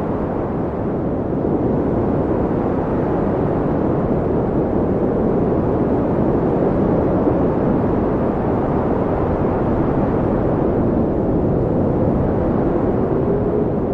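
Blizzard wind blowing steadily with a deep, low rush, and a faint howling whistle that wavers in pitch near the end.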